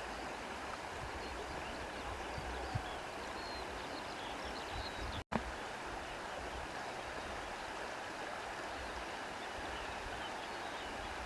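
Stream water running steadily, with a brief dropout to silence about five seconds in.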